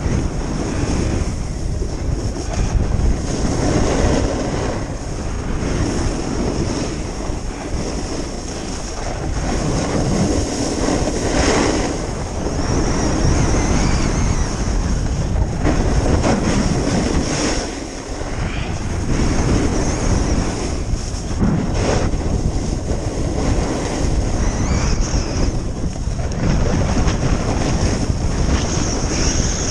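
Wind buffeting the microphone over the hiss and scrape of skis on packed snow during a downhill run, the scraping rising and falling every couple of seconds with the turns.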